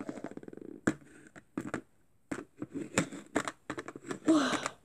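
Clicks and taps of a small plastic pony toy and its cardboard packaging being handled on a tabletop, opening with a quick fine rattle. A brief pitched hum from a voice comes near the end.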